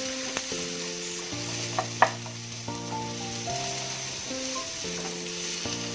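Chopped onion sizzling as it fries in hot oil in a pan with cashews, garlic and ginger, being stirred with a spatula, with a few sharp clicks of the spatula against the pan, the loudest about two seconds in. Background music plays over it.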